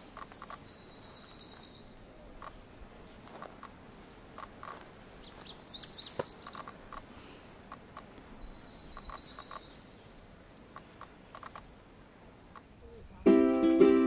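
Male Lazuli bunting singing: two high buzzy trills about eight seconds apart with a quick burst of sharp, sweet notes between them. Loud ukulele music comes in just before the end.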